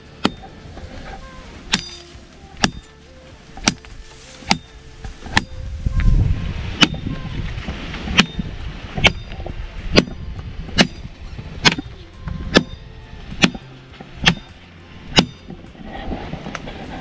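A machete (cutlass) chopping into a tree limb in a steady rhythm of sharp chops, about one a second, some seventeen strokes in all. Wind rumbles on the microphone about six seconds in.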